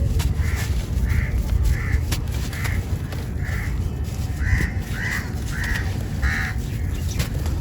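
A bird calling in a series of about ten short calls, roughly two a second, heard over scattered sharp crackles of a dry, crispy powder crumbling and a steady low rumble.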